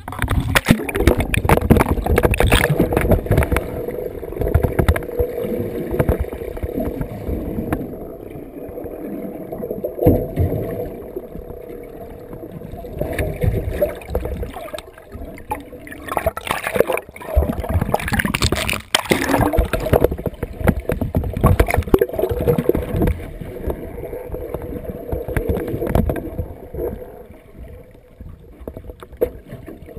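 Muffled sloshing and gurgling of seawater around a submerged GoPro camera, with a steady hum underneath and scattered knocks.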